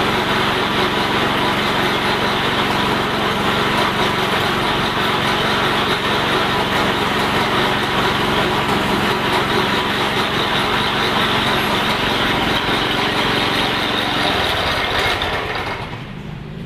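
Vertical pellet mill running steadily under load, its motor droning as it presses feed into pellets. About fifteen seconds in it is shut down and the sound drops away.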